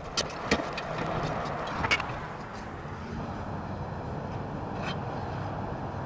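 A few sharp clicks and knocks of clay roof tiles and a roof vent being handled, mostly in the first two seconds and once more near the end, over a steady low rumble.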